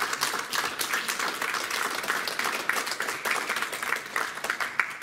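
Audience applauding, a dense patter of many hands clapping that stops near the end.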